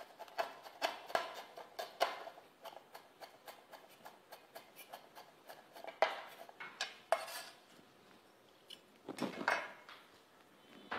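Kitchen knife chopping on a wooden cutting board, mincing aromatics: quick, even strokes about three or four a second, then a few heavier chops, a short pause and another brief run of chopping near the end.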